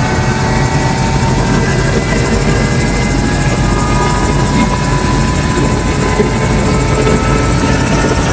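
Helicopter engine and rotor running steadily, a loud constant drone with a faint high whine over it.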